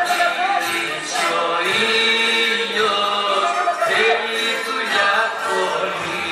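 Several voices singing a song together, sustained sung notes that rise and fall in pitch.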